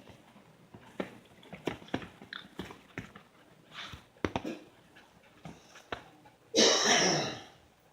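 Small dogs scuffling and moving about, with scattered clicks, scratches and rustles. About six and a half seconds in comes one loud, harsh burst lasting nearly a second.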